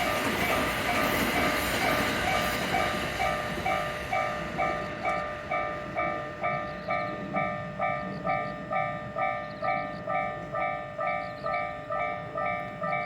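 Japanese level-crossing warning bell ringing its electronic clang, about two strokes a second. Over the first few seconds a passing train's running noise covers it and then fades away.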